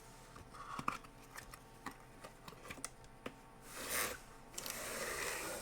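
Cardboard box and packaging being opened by hand: scattered light clicks and taps, then a short rustling scrape about four seconds in and a longer one near the end.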